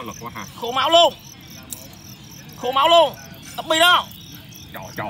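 Fighting cricket chirping: three short chirps, the second and third close together, over a faint steady background of insect song.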